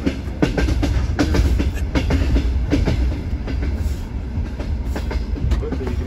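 Moving passenger train heard from inside the carriage: a steady low rumble with a run of sharp clacks from the wheels over the rail joints, thickest in the first half.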